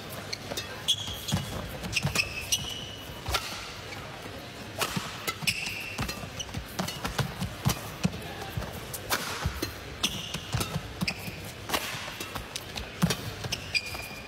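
Badminton rally: rackets striking the shuttlecock in a quick back-and-forth exchange, with short squeaks from players' shoes on the court between the hits.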